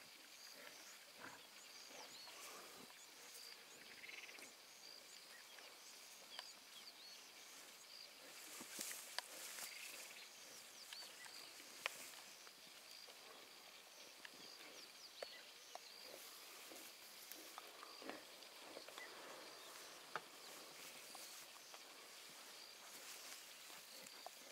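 Lion cub gnawing on the horned skull of an impala: faint, scattered crunches and sharp clicks of teeth on bone and horn.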